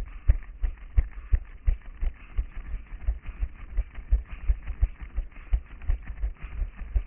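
A runner's footfalls on a paved path, picked up through a head-mounted action camera: a steady low thump about three times a second, over a soft hiss.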